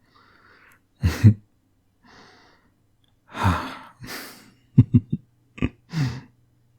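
A man breathing close to the microphone, with short gasps and brief wordless murmurs between breaths.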